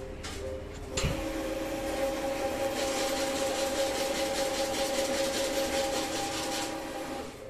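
Hyosung ATM cash dispenser running as it pays out banknotes. A click about a second in is followed by a steady motor whir, with a rapid flutter of notes being picked and counted through the middle, all stopping shortly before the end.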